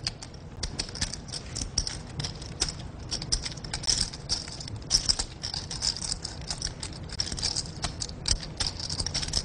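Poker chips clicking together as they are handled at the table, a rapid, irregular patter of small sharp clicks.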